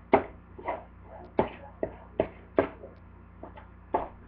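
A spoon stirring a thick oatmeal and honey mixture in a plastic mixing bowl, knocking against the bowl in sharp irregular clacks about twice a second.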